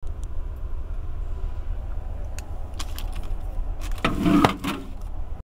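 Steady low rumble inside an Amtrak Superliner sleeping car, with a few faint clicks and, about four seconds in, a brief rattling clatter from a hand working at the base of the seat.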